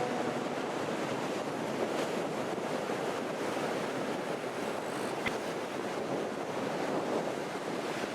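Ocean surf washing onto the shore in a steady rushing noise, with onshore wind buffeting the microphone.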